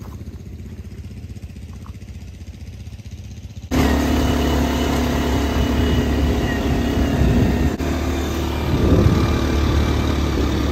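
ATV (quad bike) engine sound: a low rumble at first, then, about four seconds in, a much louder steady engine drone as a quad is ridden along a dirt trail.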